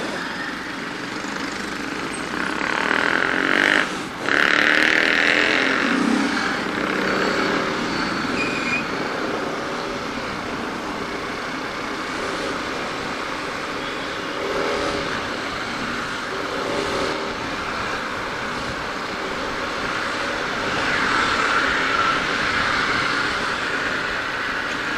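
Road traffic noise in a slow-moving jam: motorcycle and car engines running around the rider, a steady hum of vehicles with a louder stretch a few seconds in.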